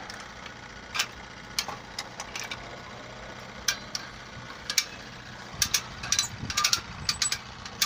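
Hand-cranked come-along ratchet winch being worked, its pawl clicking as it draws a boat in. The clicks come singly and irregularly at first, then in quicker runs in the second half.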